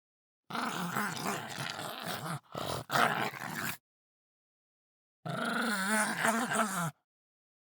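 Pug roaring in three bouts: two back to back, then a third after about a second and a half of silence.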